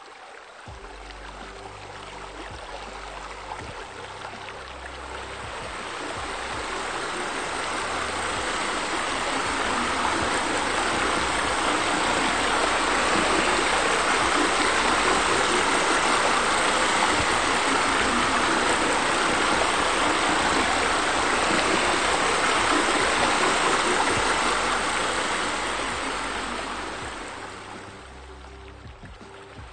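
Steady rush of running water from a waterfall spilling into a pool. It swells up over the first several seconds, holds, then fades away near the end.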